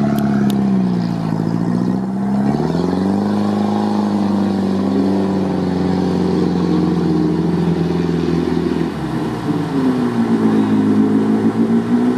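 An off-road 4x4's engine revving under load as it drives through mud, the pitch rising and falling with the throttle: held steady for several seconds, easing off about nine seconds in, then picking up again near the end.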